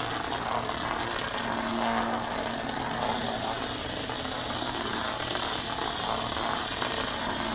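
HexBug Mouse robotic cat toy's small electric motor running with a steady whir.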